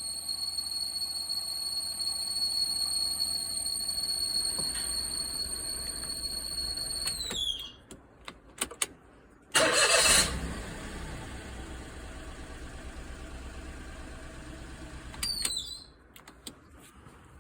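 Daihatsu Tanto engine running with a steady high-pitched whine, the abnormal noise the owner traced to a worn water pump at nearly 150,000 km. About seven seconds in the engine is switched off and the whine falls in pitch as it dies. The engine is started again a couple of seconds later, and near the end a short whine falls away as it shuts off once more.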